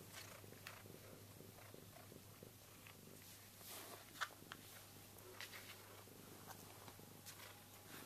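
Domestic cat purring softly and steadily, close to the microphone, with a few faint ticks and scratches as it paws at a cloth toy on the floor.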